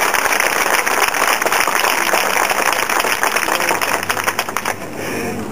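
Audience applauding, a dense patter of many hands clapping that thins out and stops near the end.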